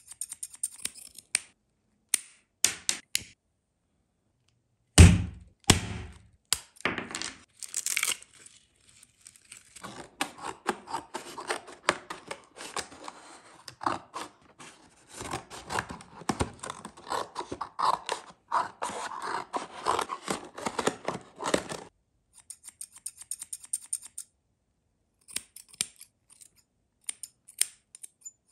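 Steel scissors snipping, then a loud thunk about five seconds in. A long stretch of rustling follows as the doll's cardboard box is handled, and near the end come quick light snips of scissors cutting through doll hair.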